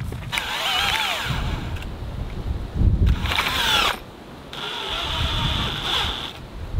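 Power drill running in three bursts, its motor whine dipping and rising in pitch as the bit bites and frees.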